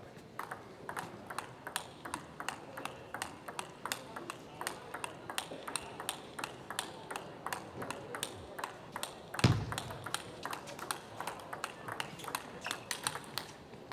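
Table tennis rally: the ball clicks off bats and table about three times a second for over ten seconds. About two-thirds of the way through comes one dull low thump, the loudest sound.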